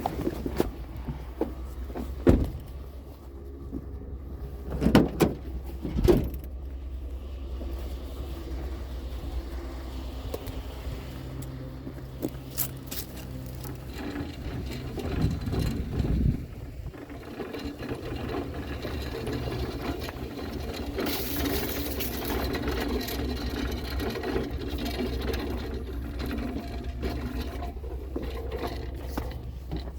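Motor vehicle running, a steady low engine-and-road rumble with a few sharp knocks in the first several seconds. About halfway through the rumble gives way to a fuller, somewhat louder running noise.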